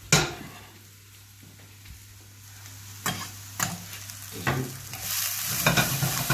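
Diced onion gently frying in a pan, stirred with a wooden spatula. A sharp knock comes just after the start, then a few knocks of the spatula against the pan, and the sizzling grows louder about five seconds in.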